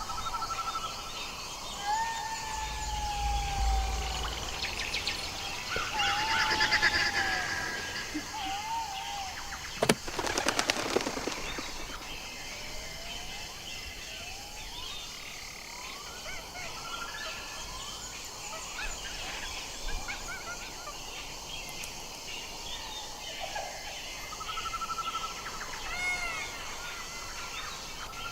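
Jackals howling together: several overlapping high, wavering wails that glide and mostly fall in pitch. Two loud bursts of quick, rapidly pulsed calls come about six and ten seconds in.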